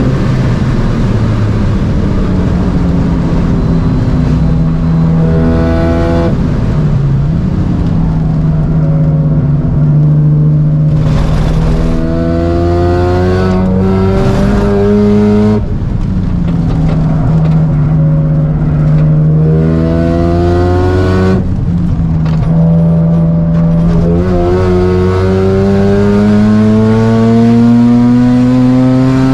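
Single-turbo 13B rotary engine of a Mazda RX-7 FD3S driven hard: the note climbs in pitch under full throttle, then drops sharply at each gear change or lift, five or six times over.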